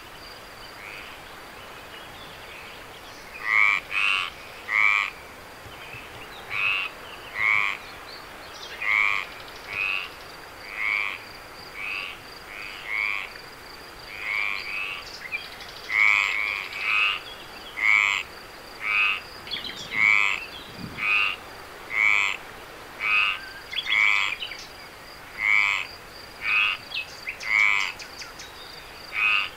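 A frog calling over and over, short pulsed croaks about once a second, with a steady thin high trill behind them.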